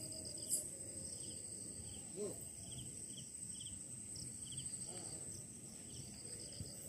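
Night insects such as crickets calling: a faint steady high-pitched trill with short chirps repeating about twice a second.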